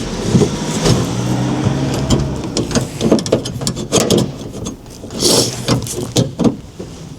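Sharp metallic clicks and knocks as a stainless steel lock plate and its nuts are handled and fitted onto studs inside a van's cab door. A steady low engine-like hum sounds for a couple of seconds early on.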